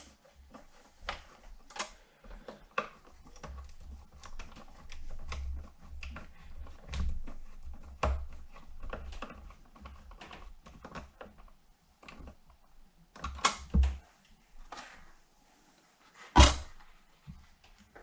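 Hand work on a motorcycle saddlebag latch: a run of small clicks and taps of metal hardware and tools as a screw or nut is worked into its thread, with one loud thunk near the end.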